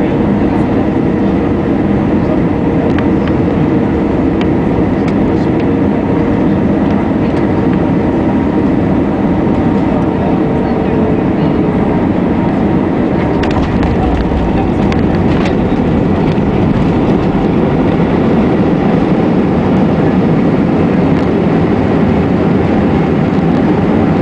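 Steady cabin noise of an Airbus A319 heard from a window seat over the wing on final approach and landing: CFM56 turbofan engines and rushing airflow, with a faint steady hum.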